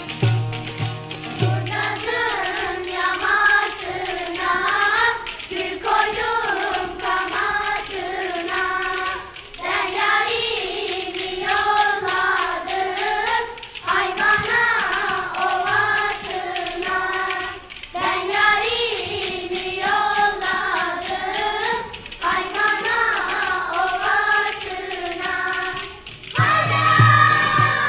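Turkish folk song sung by a group of high voices in unison, in short repeated phrases, over saz accompaniment. The singing enters after an instrumental opening with a steady low beat, and the instruments take over alone again near the end.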